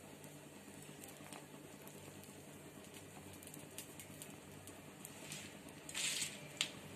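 Faint sizzling of uttapam batter cooking on a hot iron tawa: a soft steady hiss with scattered light ticks. About six seconds in there is a short louder rustle, then a click.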